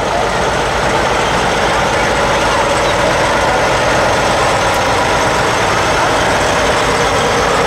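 A large vehicle's engine running steadily close by, holding one even level throughout.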